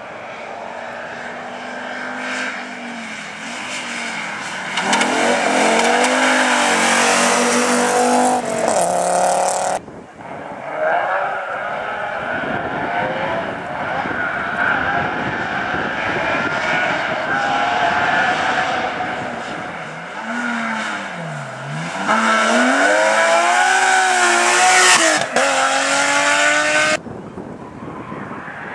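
Rally cars driven hard one after another on a tarmac stage, first an Audi coupé and then a BMW 3 Series, their engines revving up and dropping through repeated gear changes and lifts. The sound changes abruptly twice, about ten seconds in and near the end, as one car gives way to the next.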